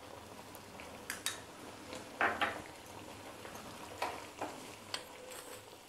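Thick kofta gravy simmering in a frying pan as it comes to the boil, with a faint steady hiss and a few scattered soft pops and clicks.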